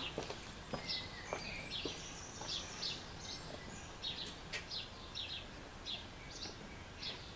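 Small birds chirping and singing, a run of short high chirps repeated every fraction of a second, with a few faint clicks or knocks.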